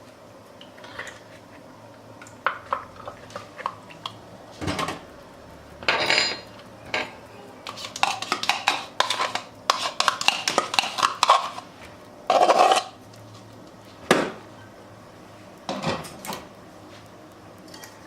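A kitchen utensil clinking and scraping against a mixing bowl while wet cookie batter of eggs, sugar, oil and yogurt is mixed. The clicks come irregularly, with a run of rapid clinking in the middle.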